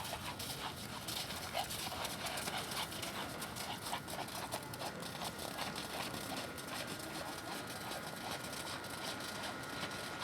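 Hoofbeats of a ridden Thoroughbred horse, a steady run of repeated footfalls.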